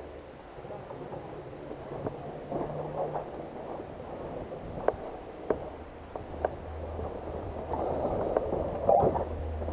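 Rustling movement noise from a player's body-worn camera and gear, over a steady low rumble, with several sharp clicks: two about halfway through, one a little later and a louder one near the end.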